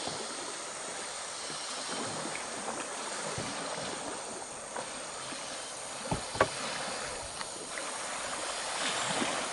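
River water washing and lapping against an inflatable raft moving along a swollen, muddy river, a steady rushing noise with a couple of short knocks about six seconds in.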